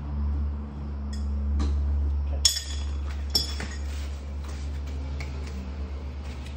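Two sharp metallic clinks, a couple of seconds in and about a second apart, with fainter ticks of metal tools on metal parts while a fridge compressor is being taken out, over a steady low hum.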